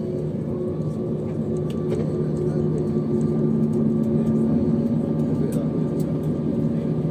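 Cabin sound of an Airbus A321neo taxiing, its Pratt & Whitney geared turbofan engines running at taxi power: a steady hum with several held tones, getting slightly louder through the middle.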